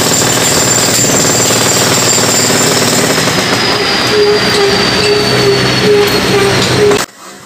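Jackhammer breaking up the concrete top of a wall: a loud, steady, continuous hammering with thin high ringing tones over it, one slowly falling in pitch. It stops abruptly near the end.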